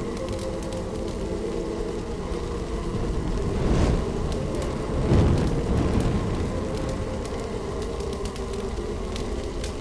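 Fire crackling with scattered sharp pops over a steady low drone, swelling twice in a rushing surge about four and five seconds in.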